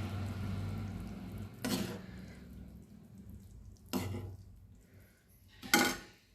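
A spoon scraping and clinking against a pan and a serving bowl as carrot halwa is served, with three sharp knocks about two, four and six seconds in. A low hum fades out in the first two seconds.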